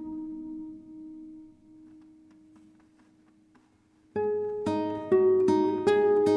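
Calm instrumental background music. A held chord dies away almost to silence, then a new phrase of single melodic notes starts about four seconds in.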